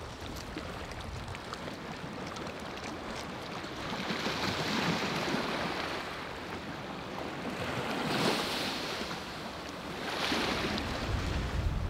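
Sea waves washing onto a beach, swelling up three times: about four seconds in, about eight seconds in, and again near the end.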